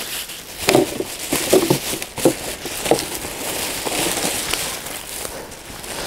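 Footsteps and rustling in dry leaves and twigs on the forest floor, with a few short cracks and snaps, as a man moves about picking up litter.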